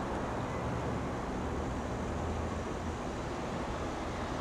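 Steady low rumble and faint hiss of background noise on an open-air shinkansen station platform, with no train close by yet.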